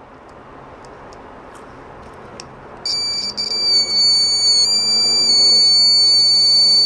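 Salvaged microwave-oven buzzer sounding from a multimeter's continuity tester: a high steady beep starts about three seconds in, stutters briefly as contact is made, then holds. The unbroken tone shows the buzzer works.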